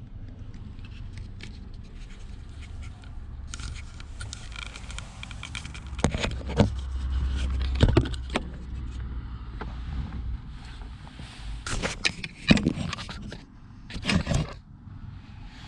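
Scraping and handling noises with several sharp clicks and knocks over a low rumble, heaviest about six to eight seconds in.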